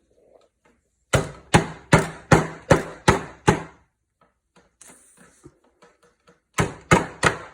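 Repeated hard blows on a bag of food on a hard surface, crushing it into crumbs for edible 'dirt': a quick run of seven strikes, a pause, then four more near the end.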